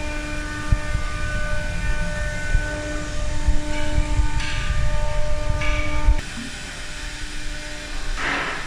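CNC router machinery running: a steady mechanical hum with low rumble and several held whining tones. It drops quieter about six seconds in, and a short hiss comes near the end.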